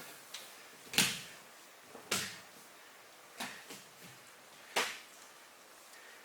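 A performer's movements on a stage floor in a performance without music: five sharp scuffs and knocks a second or so apart, each dying away quickly, over faint room hiss.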